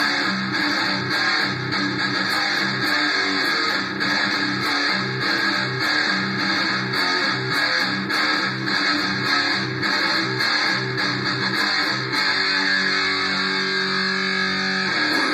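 Electric guitar playing a repeated riff, changing to longer held notes about three-quarters of the way through.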